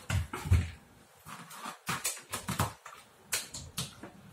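Handling of a nebulizer's mask and tubing: irregular clicks and knocks, with two louder thumps in the first half second.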